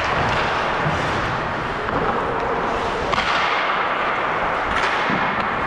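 Ice hockey skating: steady rushing noise of skate blades on the ice, with a few sharp clacks.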